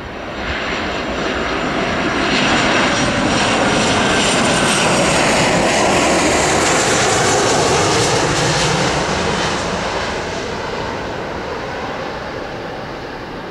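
Boeing 737-800 airliner's CFM56-7B jet engines on landing approach, passing by: a broad jet rumble with a faint high fan whine, swelling over the first two seconds, loudest through the middle, then slowly fading as it moves away.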